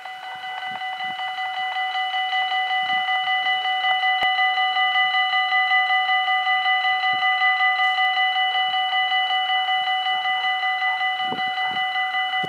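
Level-crossing warning bells of a Dutch Mini-AHOB crossing ringing continuously in a fast, regular pulse while the red lights flash and the barriers lower, warning that a train is approaching. The ringing grows louder over the first few seconds, then holds steady.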